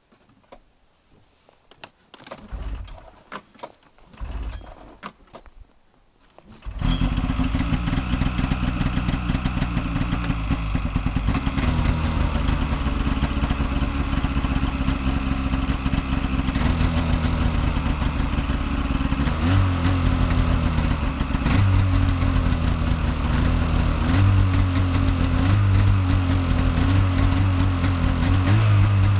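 Cold start of a 2004 Polaris Pro X 550 snowmobile's two-stroke twin on full choke: two short pulls that don't catch, then it fires about seven seconds in and settles into a steady fast idle. In the last ten seconds the revs rise and fall a little a few times.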